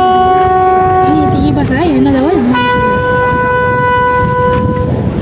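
A military band's horn sounds two long held notes. The second note is higher and comes in after a short gap filled by a wavering pitched sound.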